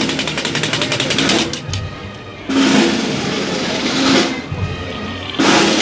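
Procession band drums playing, with snare drum rolls and louder swells about two and a half seconds in and again near the end.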